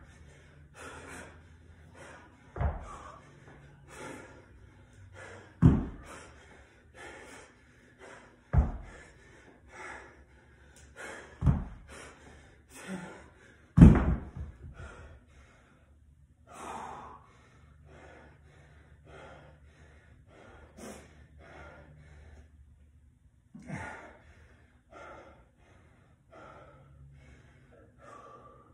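A 50-pound dumbbell thudding down on a rubber mat about every three seconds during snatch reps, the loudest thud about 14 seconds in as it is set down. After that comes heavy, gasping breathing from the exhausted athlete, with one softer thud later.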